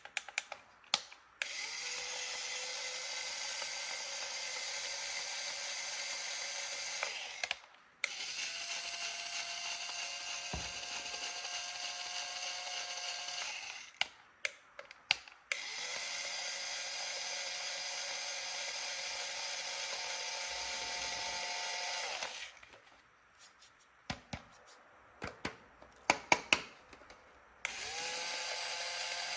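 Battery-powered toy electric drill running in repeated runs of a thin, steady buzzing whine, each lasting several seconds. Between the runs come clusters of plastic clicks as it is handled and the trigger is pressed.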